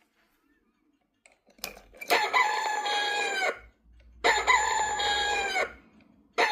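Novelty chicken alarm clock's alarm going off: a rooster crow sound, twice, each crow about a second and a half long with a falling end, a third starting at the very end.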